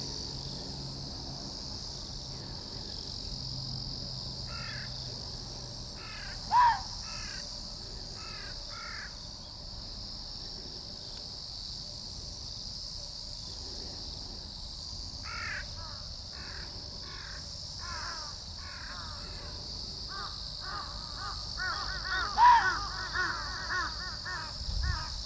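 Ezo red fox calling: runs of short, repeated barks a few per second, with two louder yelps that fall in pitch, one about seven seconds in and one near the end.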